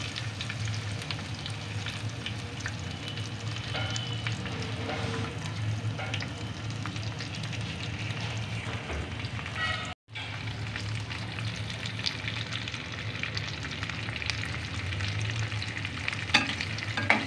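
Almond slivers, raisins, grated coconut and fennel seeds crackling and sizzling in hot desi ghee in a metal pan, stirred with a metal spoon that clicks against the pan now and then. The sound cuts out for a moment about ten seconds in.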